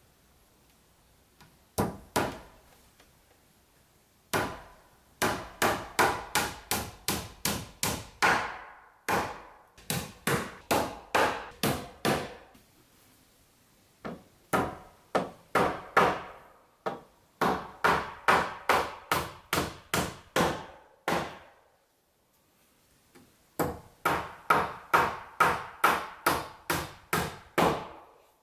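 Claw hammer driving nails into wooden cladding boards on timber framing. The blows come in quick runs of about three a second, with short pauses between nails.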